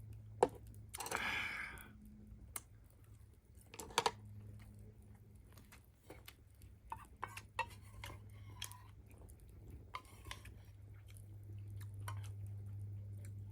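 A person chewing food, with scattered small clicks and knocks over a low steady hum.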